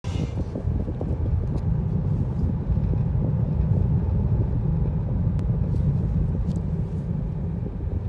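Steady low rumble of a car driving along a road, heard from inside the cabin: tyre and engine noise.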